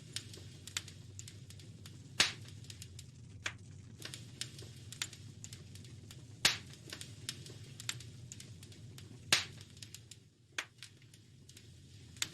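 Wood fire crackling in a fireplace: a steady low rumble with scattered small crackles and a few sharp pops, the loudest about two seconds in, about six and a half seconds in, and about nine seconds in.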